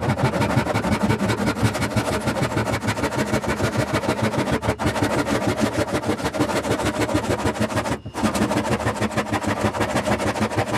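Atkins 8 TPI crosscut handsaw sawing across a hardwood board, steady back-and-forth strokes with the rasp of the coarse teeth, pausing briefly about eight seconds in before sawing on.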